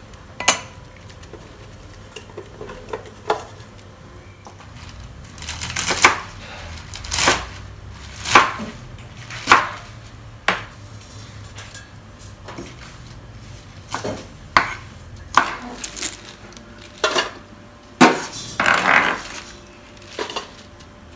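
Kitchen knife chopping sawi manis (choy sum) stalks on a wooden cutting board: separate sharp chops, roughly one a second, with a longer rustle of leaves being handled near the end.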